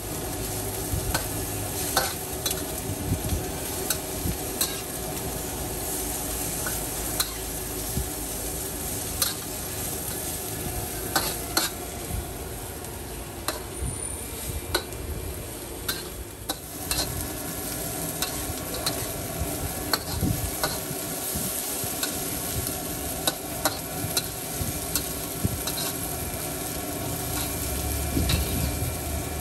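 Noodles stir-frying in a hot wok: steady sizzling, with the metal spatula clanking and scraping against the wok every second or two.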